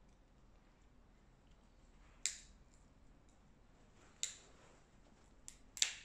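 Dog nail clippers snipping through an Alaskan malamute's claws: four sharp clicks, the first about two seconds in, the next two seconds later, then two close together near the end.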